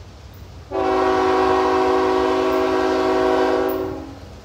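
Multi-chime air horn of a CSX GE ET44AH diesel locomotive sounding one long blast, a chord of several notes held for about three seconds. It starts just under a second in and tails off near the end.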